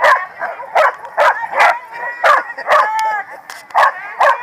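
Corgis barking in rough play, sharp barks coming about twice a second, with a short high whine about three seconds in.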